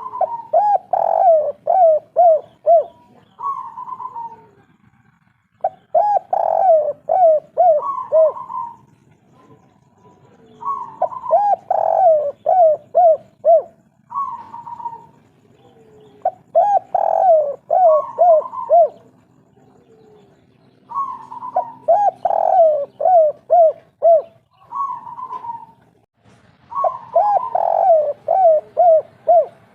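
Spotted dove (tekukur/derkuku) singing its 'kuk 3' cooing song. The phrase is repeated about every five seconds, six times in all, and each phrase is a run of short, quick coos framed by longer higher coos.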